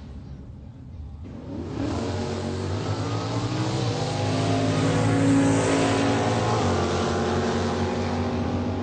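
Sports car engine running, its note swelling sharply about a second and a half in, loudest around the middle, then easing off a little.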